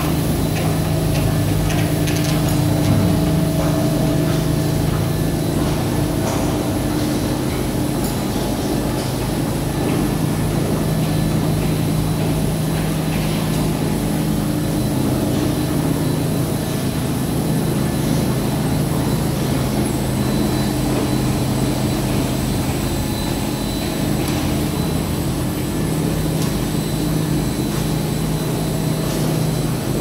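Automatic carpet washing machine running: its electric gear motors, conveyor belt and rollers make a steady mechanical hum with several held tones over an even noise.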